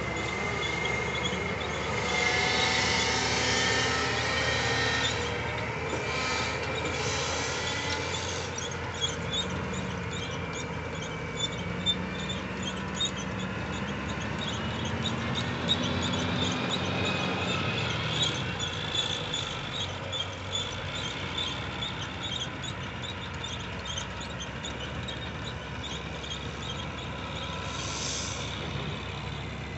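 Cat 623 paddle scraper's diesel engine working under load while its elevator paddles clank and scoop dirt into the bowl; about halfway through the engine note rises and then falls as the machine pulls away. A fast run of metallic clicking goes on through the second half.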